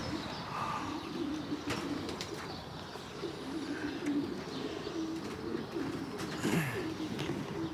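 Racing pigeons cooing, repeated low coos one after another, with a few faint sharp clicks among them.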